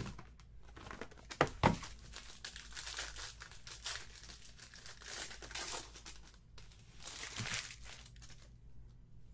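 Plastic card-pack wrapper crinkling and tearing as a small trading-card box is opened and the cards handled, with a couple of sharp knocks about a second and a half in.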